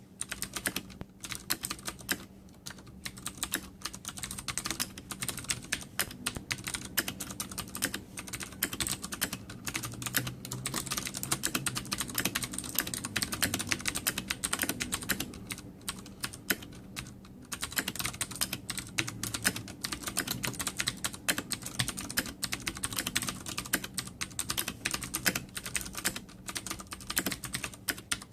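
Fast, continuous typing on a Ducky Zero mechanical keyboard with Cherry MX Blue switches: a dense, irregular run of sharp clicks, with a brief lull about two-thirds of the way through.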